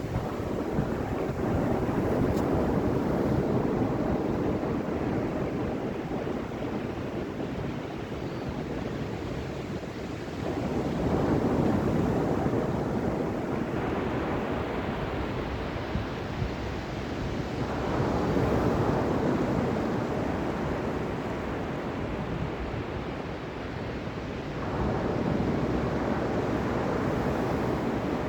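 Ocean surf: waves breaking and washing up, a new wave swelling in about every seven seconds and then fading, over a steady rush of water.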